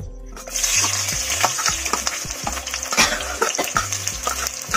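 Sliced onions sizzling in hot oil in a kadai, stirred with a metal spoon that clicks and scrapes against the pan. The sizzle sets in loudly about half a second in.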